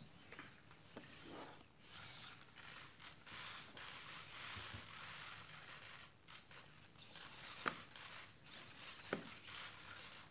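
Servo motors of the small Kirobo humanoid robot whirring as it moves its arms and legs. Several short, high-pitched whirs rise and fall in pitch, with a couple of light clicks in the second half.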